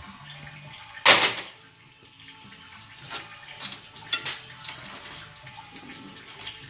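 Small metal transmission parts clinking and clicking as they are handled on a bench. About a second in there is one short, loud hiss.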